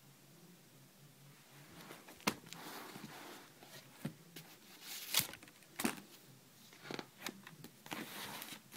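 Sketchbook pages being turned by hand: soft paper rustling broken by several sharp snaps and flaps of pages flipping over, starting about two seconds in.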